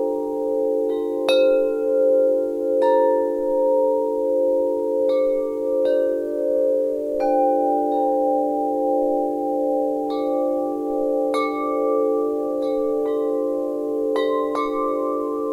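Wind chimes ringing, struck irregularly about once a second. Each note rings on, so the tones overlap into a steady chord.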